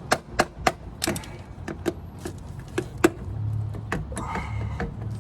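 Sharp knocks, irregular, about two to three a second, as the stuck CVT side cover is worked loose from a scooter's transmission case. A low steady drone comes in about three seconds in.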